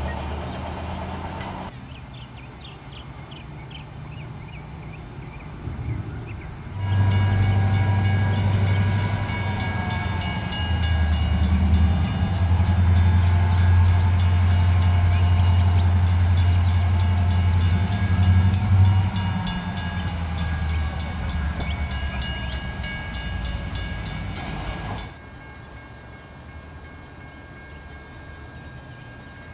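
Norfolk Southern diesel-electric locomotive with a low engine rumble as it leads a freight train past, with rapid clicking from the rolling wheels. The sound starts abruptly about seven seconds in and cuts off abruptly near the end.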